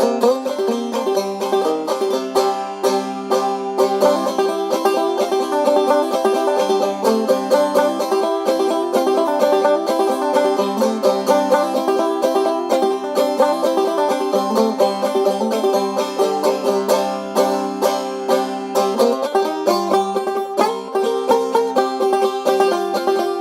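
Background music: fast picked banjo tune, bluegrass style, with a steady run of plucked notes.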